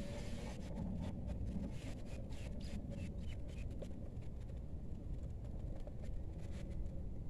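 Open-air ambience: a steady low rumble, with a run of light clicks and rustles in the first few seconds.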